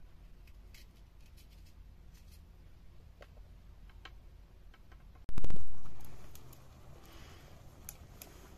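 Knife slicing vegetables against a plate, a few light clicks. About five seconds in comes a sudden loud rush of noise that fades away over a second or so.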